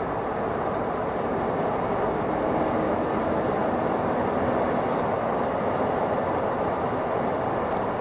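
Inside the cabin of a Škoda Fabia II with the 1.2 TDI three-cylinder diesel engine, cruising at a steady speed. The engine runs under a steady rush of tyre and road noise, growing slightly louder about two seconds in.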